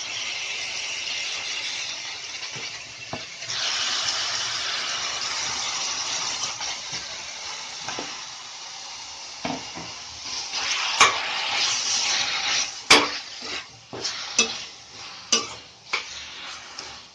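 Mutton pieces sizzling in hot oil with ginger-garlic paste in a kadai. From about ten seconds in they are stirred, with a series of sharp clanks of the spoon against the pan.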